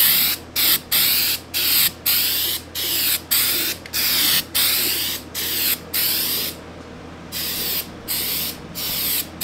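Aerosol can of undercoating spraying in a rapid series of short hissing bursts, roughly one or two a second, with one slightly longer pause about two-thirds of the way through, as a light coat goes onto a car's underside.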